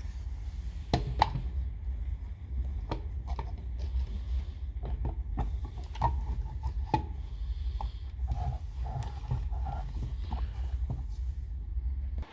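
Scattered clicks, light knocks and short scrapes of a plastic laser-level housing being handled and fitted back together, over a steady low hum.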